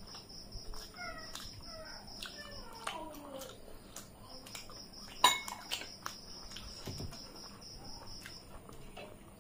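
Fingers scraping and tapping brass dinner plates while eating by hand, with one sharp loud clink of metal about five seconds in. Several falling animal cries sound in the background in the first few seconds.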